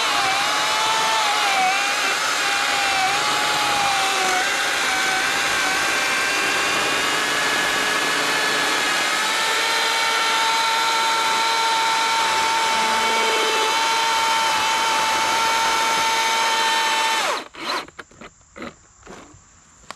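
Milwaukee M18 Fuel 14-inch battery top-handle chainsaw cutting through a thick tree trunk: a steady electric motor whine whose pitch dips and wavers under load for the first few seconds, then holds even. It shuts off abruptly about 17 seconds in, followed by a few short knocks.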